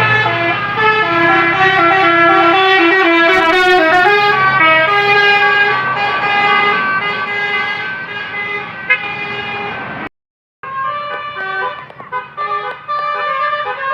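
Basuri telolet multi-tone bus air horn playing a melody, its trumpets stepping from note to note. The sound breaks off completely for about half a second around ten seconds in, then the tune resumes.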